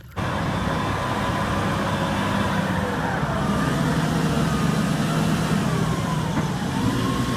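Engine of a heavy vehicle running steadily, with a faint wavering whine above it. It starts and cuts off abruptly, like an edited-in sound effect.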